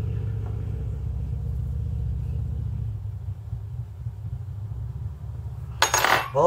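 A low steady rumble that eases off after about three seconds, with a short clatter near the end.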